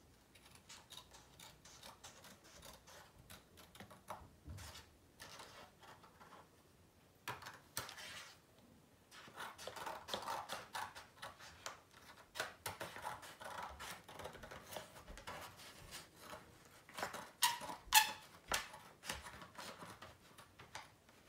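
Scissors cutting through sketchbook paper in short, irregular snips, sparse at first and busier from about halfway through.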